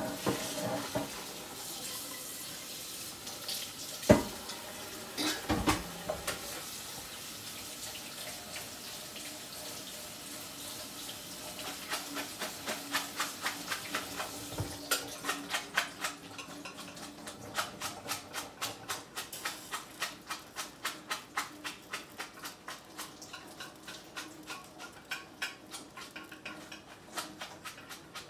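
Tap water running over cooked spaghetti in a colander at a kitchen sink, with a couple of knocks of the colander or pot. About halfway through the water stops and a run of quick, evenly spaced light clicks follows.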